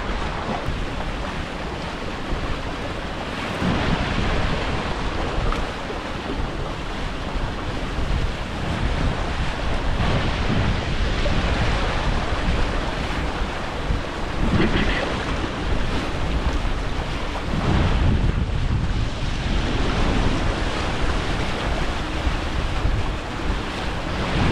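Wind blasting the microphone over water rushing and splashing past a Hobie catamaran's hulls as it sails. The noise swells and eases in uneven surges.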